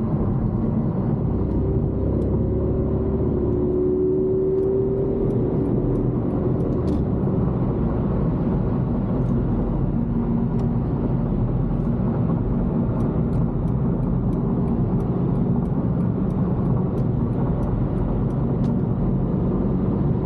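A car being driven, heard from inside the cabin: steady engine and road noise. The engine tone rises a little from about two to five seconds in.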